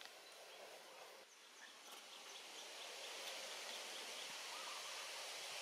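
Faint outdoor forest ambience: a steady hiss of background noise, with a run of soft, high chirps in the middle.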